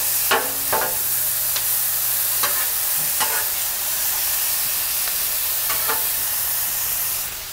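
Diced onions, garlic, Rotel tomatoes and green chilies sizzling on a Blackstone steel flat-top griddle, with a metal spatula scraping and tapping the griddle surface every so often as it stirs them.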